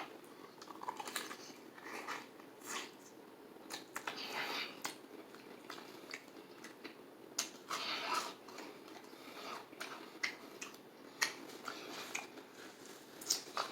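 A person chewing and biting into fried chicken close to the microphone, in short irregular bouts of wet mouth sounds and clicks.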